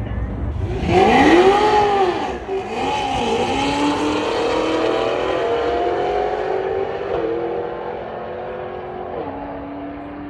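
Tuned Cadillac CTS-V's supercharged V8 launching hard at full throttle about a second in. Its pitch rises and falls sharply, then the engine pulls steadily up through the gears, with upshifts about seven and nine seconds in, and fades as the car runs away down the quarter-mile drag strip.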